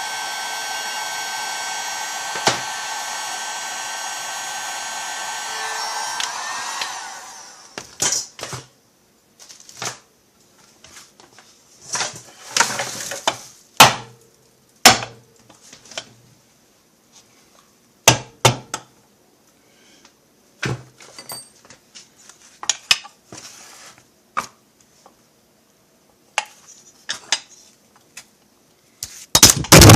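Electric heat gun blowing steadily, then switched off about seven seconds in and winding down. After that come scattered clinks and knocks of metal tools and parts being handled, loudest near the end.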